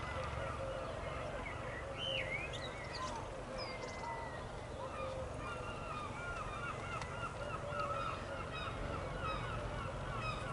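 A flock of birds calling, many short rising-and-falling calls overlapping one another, over a low steady rumble.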